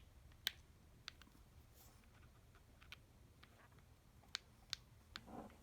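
Small sharp metal clicks of precision screwdriver bits being handled and tried in the driver, about six at irregular intervals over near silence.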